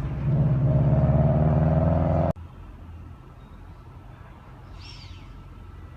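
A V-set electric train's motors hum loudly and rise steadily in pitch as it gets under way, then cut off suddenly about two seconds in. After that comes a low steady rumble and one short bird chirp near the end.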